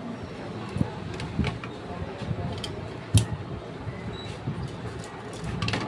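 Scattered light clicks and knocks of screws, tools and metal parts being handled as a sewing-machine servo motor controller's casing is unscrewed and taken apart, the sharpest knock about three seconds in and a few more near the end.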